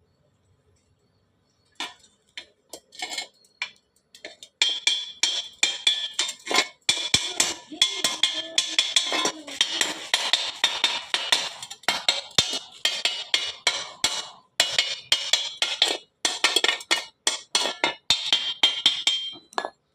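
Stick (MMA) welding arc crackling: a few scattered crackles as the arc is struck, then a dense, steady crackle from about four seconds in, with brief breaks, that cuts off just before the end.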